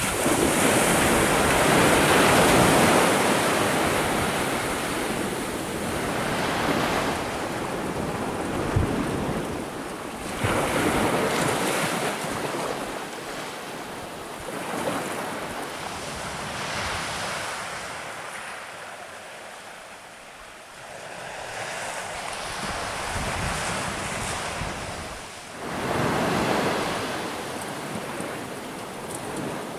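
Surf on a sandy beach: waves washing up and draining back in swells every few seconds, loudest near the start and again near the end, with a quieter lull in the middle. Wind rumbles on the microphone.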